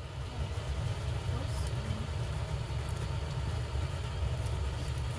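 A steady low rumble with a few faint ticks.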